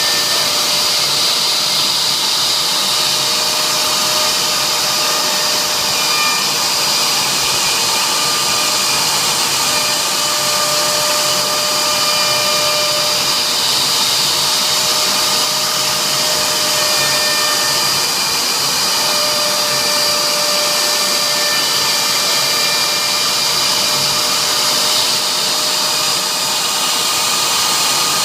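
CNC router spindle running steadily while engraving a signature board: a continuous high whine over a rushing noise, its pitch stepping slightly now and then.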